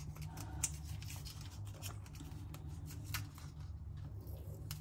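Hands working on a potted orchid, making scattered light clicks and rustles over a steady low hum.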